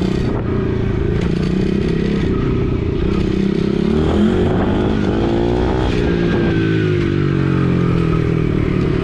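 Gas dirt bike's engine running under the rider, its pitch following the throttle: the revs climb about four seconds in, then ease off again.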